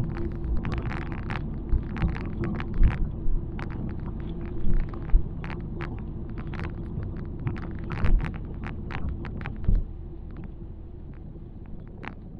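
Road and engine noise inside the cabin of a 2001 Ford Fairmont AU driving down a wet hill road: a steady low rumble with a faint hum, broken by many irregular sharp clicks and taps that thin out about ten seconds in.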